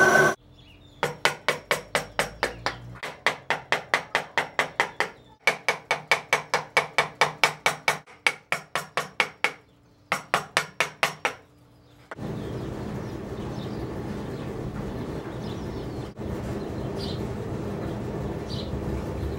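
Wood chisel being driven with a mallet into a wooden board, in quick runs of sharp taps about five a second with brief pauses between runs. After the tapping stops there is a steady background with faint bird chirps.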